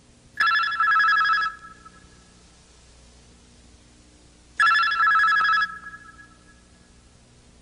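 A bell with a fast trill rings twice, each ring about a second long and some four seconds apart.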